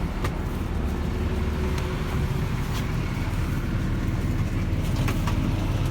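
Bus engine running with a steady low rumble, with a few faint clicks.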